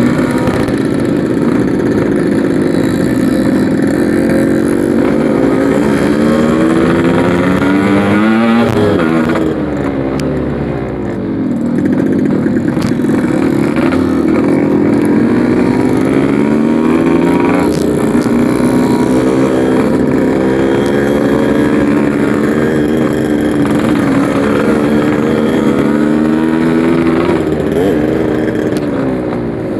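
Yamaha RX-King 135cc two-stroke single-cylinder motorcycle being ridden, its engine note rising and falling over and over as the rider accelerates, shifts gears and eases off.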